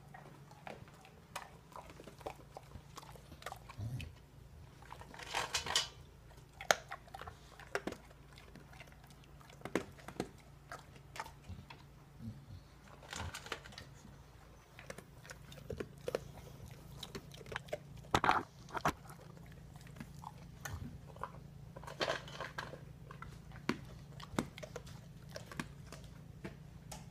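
English bulldog chewing and crunching its food, in irregular bites with a few louder crunches.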